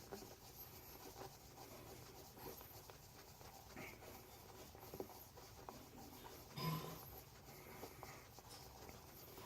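Faint rubbing of a cotton ball wiping burnt metal polish off a brass belt buckle, with small scattered clicks and one brief louder handling bump about seven seconds in.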